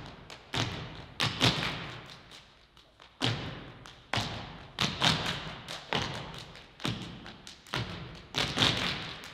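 Percussive thumps and slaps, struck one to three at a time at irregular intervals, each ringing out with a long fading echo.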